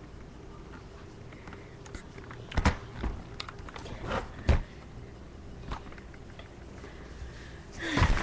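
Handling noise as the webcam is moved about: a few scattered knocks and rustles over a low steady hum.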